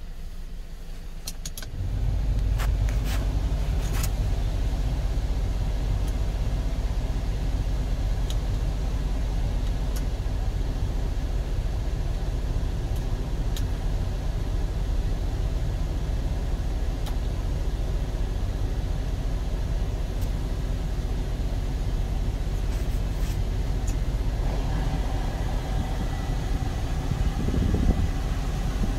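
A few clicks from dashboard buttons. About two seconds in, a steady low mechanical running sound sets in and holds: the Kia Bongo 3 freezer truck idling with its refrigeration unit running, heard from inside the cab.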